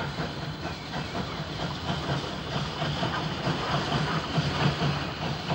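GNR VS class 4-4-0 steam locomotive pulling away from a station, steam hissing over a steady rumble.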